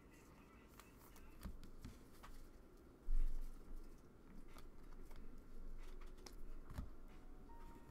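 Trading cards being flipped and slid over one another in the hands: scattered light clicks and rustles, with a short low thump about three seconds in.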